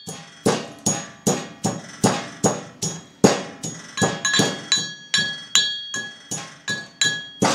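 Brass mortar and pestle pounding black peppercorns in a steady rhythm of about two to three strikes a second, each strike ringing briefly like a bell.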